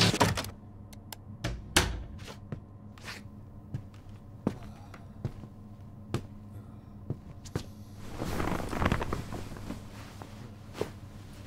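Slow footsteps, a series of sharp single knocks spaced under a second apart, then a person dropping onto a bed about eight seconds in with a longer rustle of sheets and bedding.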